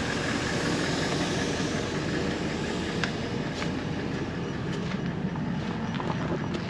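Air hissing steadily out of a four-wheel-drive's tyre valve as the tyre pressure is let down.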